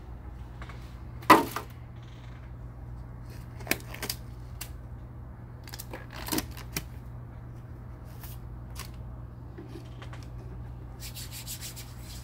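Handling sounds of a plastic catheter-kit tray and latex-free gloves: a sharp knock about a second in, a few lighter clicks and taps, then brief rustling near the end, over a steady low hum.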